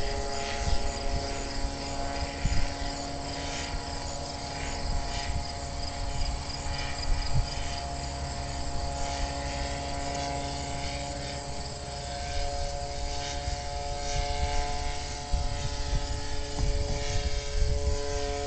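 Powered hang glider's engine and propeller droning steadily overhead, with uneven wind rumble on the microphone.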